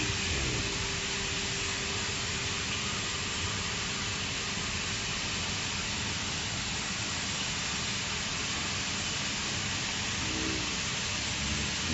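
Cutting torch of a CNC gantry profile cutter hissing steadily as it burns through a steel plate. A faint steady hum stops about halfway through.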